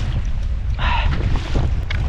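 Strong wind buffeting the microphone on a boat out on choppy water, a steady low rumble, with a brief brighter rushing noise about a second in.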